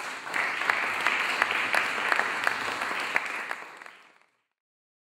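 Audience applauding, a dense patter of hand claps, fading out about four seconds in.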